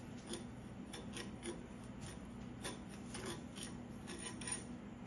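Metal spoon scraping and stirring dry granulated sugar in a stainless steel pan, a gritty rasp in a dozen or so short, irregular strokes. The sugar is still dry crystals, being heated on very low heat to caramelize.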